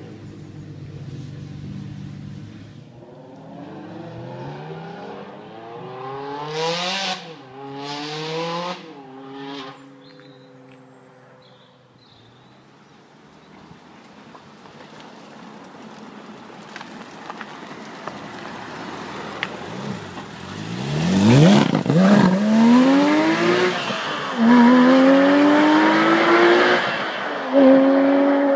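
Two cars accelerating hard in turn. First, a car revs up through a couple of gears in the middle distance. Then a much louder one, a Jaguar XJ220 with its twin-turbo V6, pulls away and accelerates through the gears, its engine note climbing and dropping at each upshift every two to three seconds.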